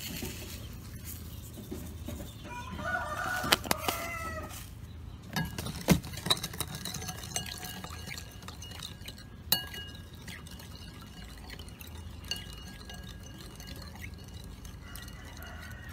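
A rooster crows about three seconds in and again near the end, with a few sharp clinks and knocks in between.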